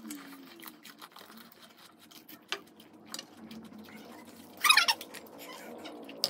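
Panipuri eating sounds: crisp puri shells cracked open and crunched, with small clicks of spoons on bowls and steel plates. One brief, louder squeaky sound about three-quarters of the way through.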